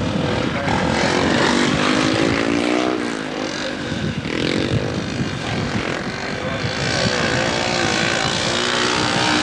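Speedway motorcycles racing, their 500 cc single-cylinder methanol engines running hard and rising and falling in pitch as they pass.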